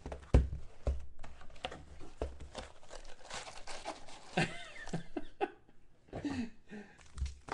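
Foil trading-card pack wrappers crinkling and tearing, with irregular clicks and rustles of cards being handled.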